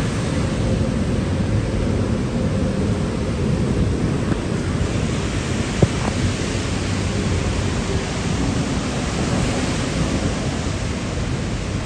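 Heavy rain pouring down, a steady loud hiss with a deep rumble under it, growing a little brighter about five seconds in. A single sharp tap about six seconds in.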